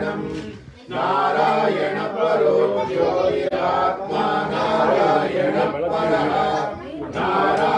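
A group of voices chanting a devotional hymn in unison, with a short break a little under a second in.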